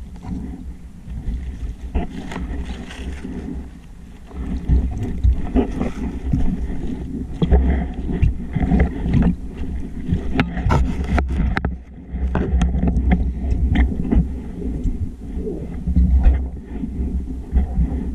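Muffled underwater sound picked up through an action camera's waterproof housing on a speargun: a low rumble of water moving around the housing, with scattered sharp clicks and knocks that bunch together a little past halfway.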